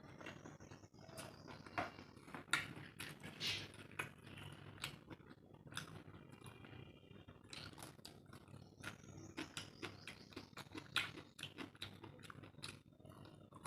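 Close-miked eating sounds: a person chewing and smacking a mouthful of curry and rice, with many irregular wet clicks and short crunchy bites.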